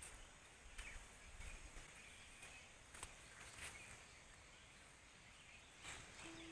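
Near silence with faint rural ambience, broken by a few soft clicks and rustles of leaves and stems as eggplants are picked off the plant.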